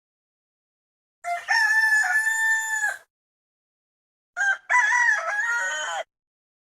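Two rooster crows, cock-a-doodle-doo, each under two seconds long: the first about a second in, the second a little past halfway, with dead silence before and between them.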